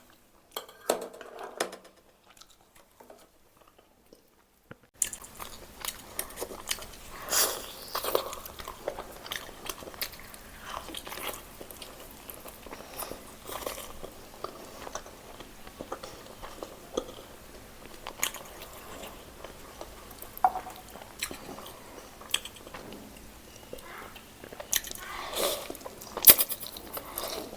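A person biting and chewing roast whole chicken in a string of wet, clicky mouth and food sounds. It starts about five seconds in, after a near-silent opening.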